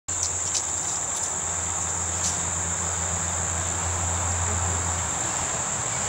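Steady high-pitched insect drone, unbroken, over a low hum that fades about five seconds in, with a few faint ticks in the first couple of seconds.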